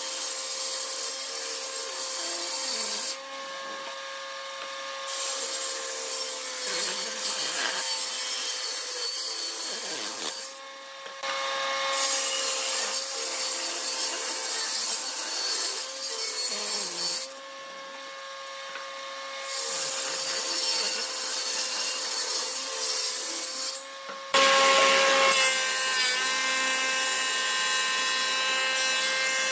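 Table saw ripping a thick rough-sawn slab lengthwise: a steady motor tone under the noise of the blade cutting, which breaks off and returns abruptly several times. About 24 seconds in it switches suddenly to a louder thickness planer running as a board feeds in.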